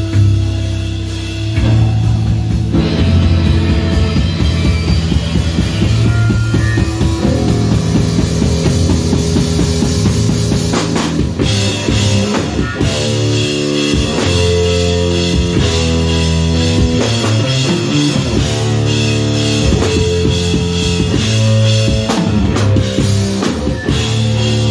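Live instrumental heavy rock from two electric bass guitars and a drum kit. The basses play loud, sustained low riffs. The drums come in about a second and a half in and keep a driving beat.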